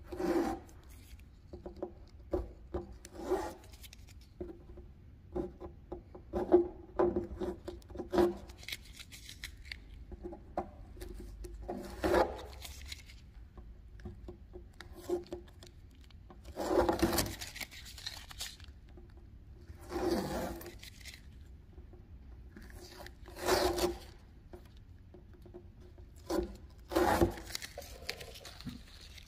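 Tape being peeled off a car's painted hood: irregular short scrapes and rustles, with several longer ripping pulls of about a second each, mostly in the second half.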